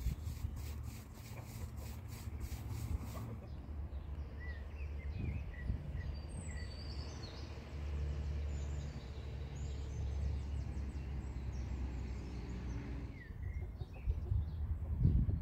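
Small birds chirping over a steady low rumble, with the chirps coming mainly in the middle of the stretch.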